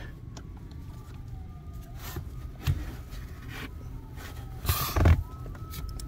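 Hands working at a car's brake pedal and brake light switch under the dashboard: a few soft knocks and rustles of handling, the loudest cluster about five seconds in.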